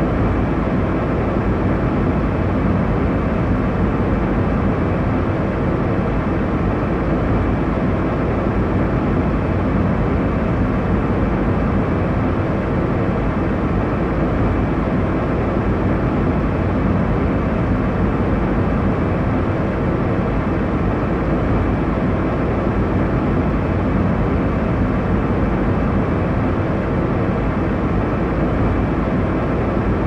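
Jet airliner cabin noise: a steady, unbroken rush of air and engine drone, strongest in the low range, with no changes or distinct events.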